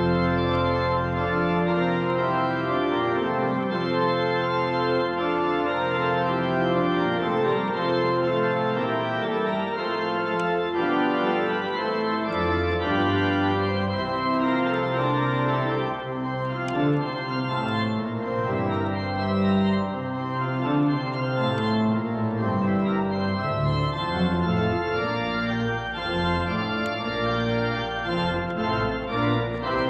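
Organ music: slow, held chords whose notes change every second or two.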